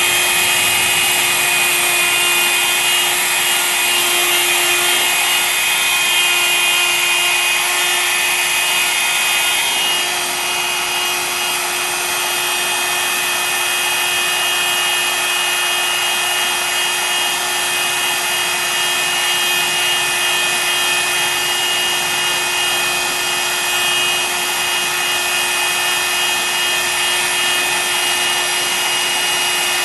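Hot air gun running steadily, a fan whine over a rush of air, as it heat-shrinks a freshly glued separator membrane tight across the cell plate. It eases slightly about ten seconds in.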